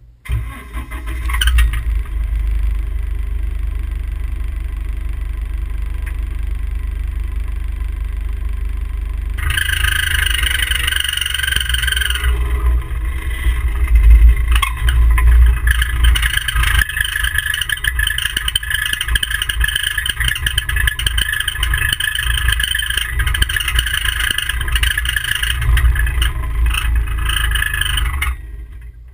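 A vehicle engine running with a heavy low rumble, heard from a camera mounted on the vehicle. A rougher, higher-pitched noise joins about ten seconds in. The sound starts and cuts off abruptly.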